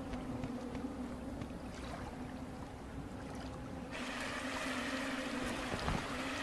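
Steady flowing-water noise with a low steady hum underneath; the hiss turns brighter about four seconds in.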